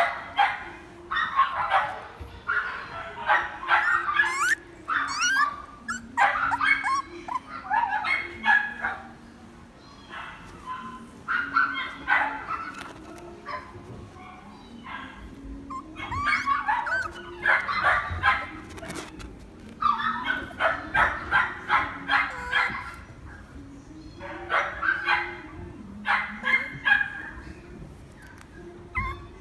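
A puppy yipping and whimpering in playful clusters of short, high-pitched yelps, a burst every couple of seconds.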